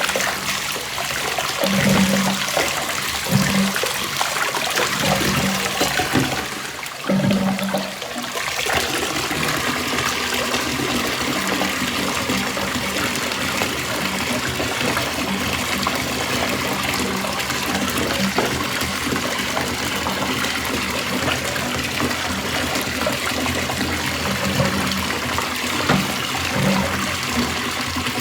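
Water running steadily from a tap and splashing, with a short break about seven seconds in.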